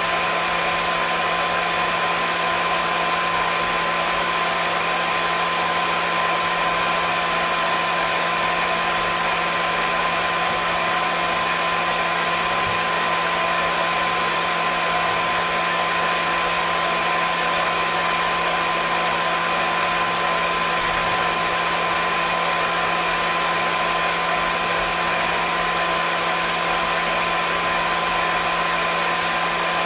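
Hair dryer running steadily: an even, unchanging rushing whoosh with a steady motor hum and whine under it.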